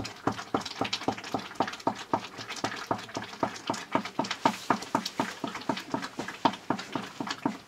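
A ladle scraping and stirring quickly in a metal cooking pan, in a fast even rhythm of about five strokes a second.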